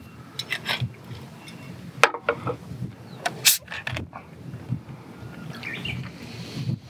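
A plastic bottle of sour mix being handled and set down on a wooden slatted table next to a glass of ice: a few sharp clicks and knocks, the loudest just past the middle, over a low wind rumble on the microphone.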